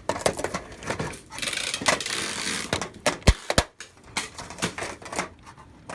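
Clicks, knocks and a scraping rustle of plastic tube lampholder sockets being worked into the holes of a sheet-metal light fixture, with two sharp clicks a little past halfway.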